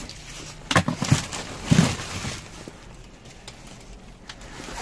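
Rustling and a few sharp knocks from produce and its plastic packaging being handled in a dumpster. The knocks come at about a second in and again near two seconds.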